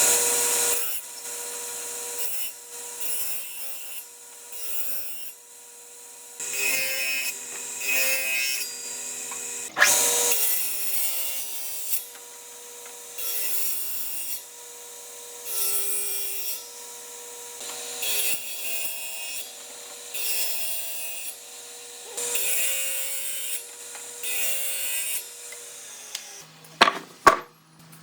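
A power tool running steadily while it cuts or abrades wood in repeated passes, each pass a hissing rasp roughly every one and a half to two seconds.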